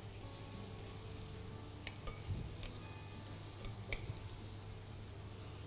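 Food frying quietly in a pan: a steady faint sizzle, with a few sharp ticks about two seconds in and again near four seconds.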